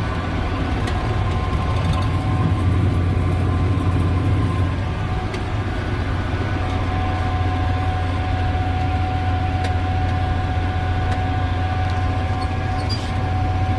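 Tractor engine running steadily under load, heard from inside the cab while it pulls a hay merger, with a low drone and a steady high whine over it.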